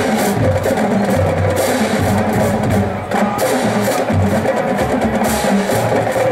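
Marching drumline playing a fast, continuous percussion cadence of snare drums and pitched marching bass drums, the bass notes shifting in pitch from beat to beat.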